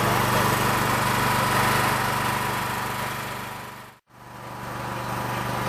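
Engine running steadily at idle, a constant low hum with an even wash of noise over it. It fades out for a moment about four seconds in and comes back.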